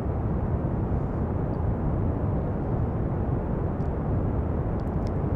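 Steady pink noise: an even, unbroken hiss, dull rather than bright.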